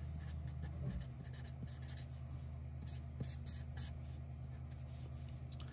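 Sharpie permanent marker writing and drawing on paper: a run of short, faint scratchy strokes, over a low steady hum.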